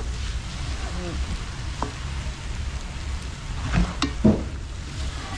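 Chowmein frying in a pot over a fire: a steady sizzle as it is stirred, with two sharp knocks about four seconds in.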